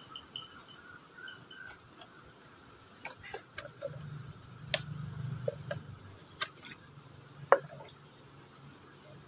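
Insects drone steadily, with a few short, evenly repeated chirps at the start. From about three seconds in come scattered clicks and knocks of handling with a low rumble, the sharpest knock about two seconds before the end.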